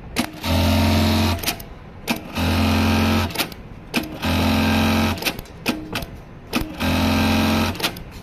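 JACK computerized bartack sewing machine running four bartack cycles in a row. Each is a steady run of fast stitching lasting about a second, with sharp clicks just before it starts and after it stops.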